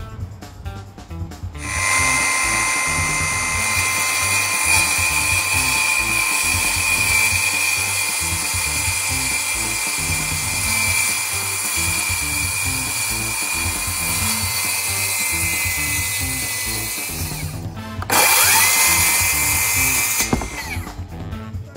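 Power tool motor running at a steady high-pitched whine for about fifteen seconds, its pitch sagging slightly near the end before it stops. After a brief pause it spins up again, runs for about two seconds and cuts off.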